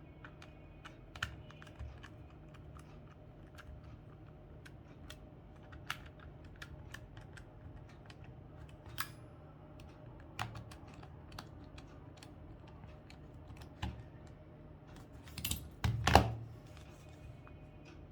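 Irregular small plastic clicks and taps from handling a Casio fx-991MS calculator's parts, with a louder clatter about sixteen seconds in.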